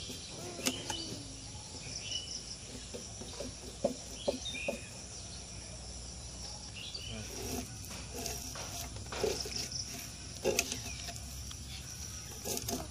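Tilapia being scaled against a boti, the curved floor-mounted blade: irregular rasping scrapes and clicks, sparse at first and coming thicker in the second half. Under it, a steady high chirring of insects and a few short chirps.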